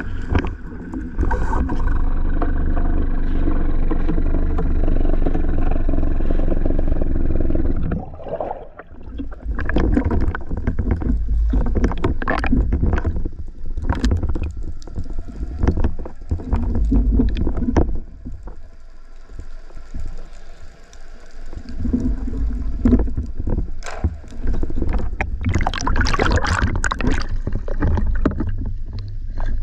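Sea water sloshing and gurgling around a camera during a spearfishing dive, with irregular knocks and scrapes. A steady drone holds for about the first eight seconds, then gives way to the choppier water noise.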